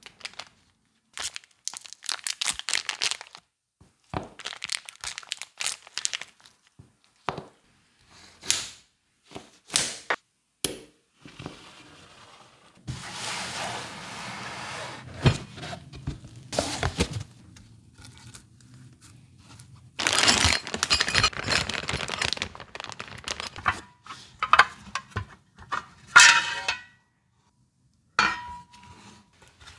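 Hand work on small parts and tools: a run of separate clicks and knocks, with two longer stretches of scraping or rubbing in the middle and later on.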